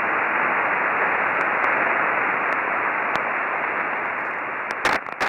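Shortwave radio static: a steady hiss with the narrow, muffled band of a radio receiver, broken by a few crackles near the end.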